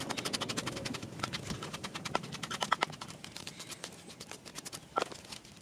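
Wooden pestle pounding a wet vegetable paste in a wooden mortar: a quick run of knocks that thins out after about three seconds to a few single knocks.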